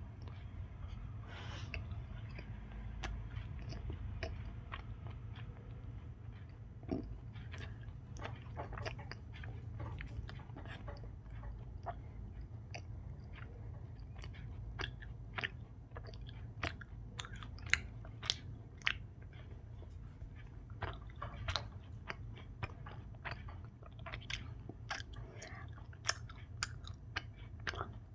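Close-miked chewing of soft Indian sweets, with many small wet mouth clicks and smacks, thickening in the second half, over a steady low hum.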